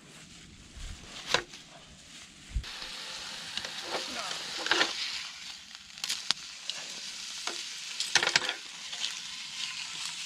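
Gammon steak frying, with a steady sizzle that starts about a quarter of the way in. Several sharp knocks and clinks sound over it.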